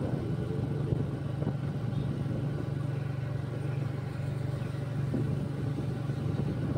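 Motorcycle engine running steadily while riding, a steady low drone with road and air noise over it.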